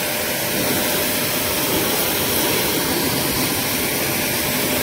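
Shakti S5 pressure washer running: its motor and pump hum steadily with a faint steady whine while the high-pressure water jet hisses and spatters on wet paving stones.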